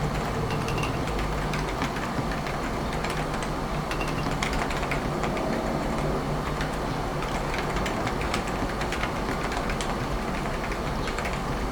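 Continuous typing on a silenced Topre-style electro-capacitive keyboard with 49g carrot domes and a stainless steel plate: soft, muted keystrokes in quick irregular succession over a steady hiss from the heavily boosted microphone gain.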